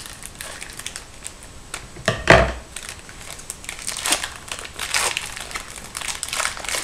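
Wrapper of a 2011-12 Panini Certified hockey card pack being torn open and crinkled, with a sharp, loud rip about two seconds in, then a run of crinkling as it is pulled apart.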